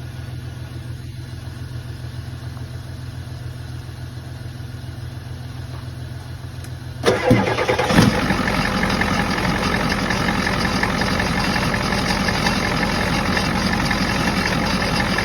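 7.3 IDI V8 diesel engine cranking on the starter for about seven seconds, then catching and running, with a knock as it fires up. The long crank before it starts reflects the hard starting caused by weak batteries and corroded battery terminals.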